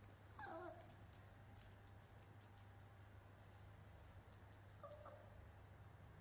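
A toy poodle puppy gives two faint short whimpers, each dropping in pitch: one about half a second in and a briefer one near five seconds.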